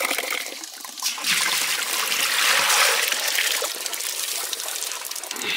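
Soaked rice and water poured from a metal pot into a stainless-steel colander, water splashing and trickling through the holes. The pour swells a little after a second in and eases off after a few seconds.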